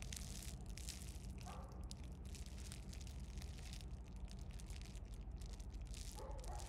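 Faint rustling and scuffling of two kittens play-fighting in grass and leaves, with light crackles, over a steady low background hum.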